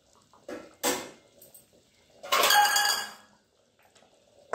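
Stainless-steel pan lid and utensils clinking: two sharp clicks, then about two seconds in a metallic clatter with a brief ring as the steel lid is handled, and another clank at the very end as it goes onto the kadhai.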